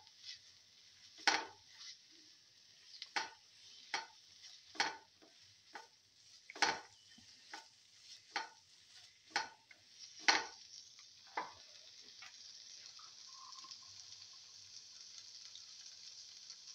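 Spatula scraping and knocking against a nonstick frying pan as a bitter gourd, tomato and fenugreek leaf stir-fry is mixed, over a steady sizzle of frying. The strokes come irregularly about once a second and stop about two-thirds of the way through, leaving the sizzle alone.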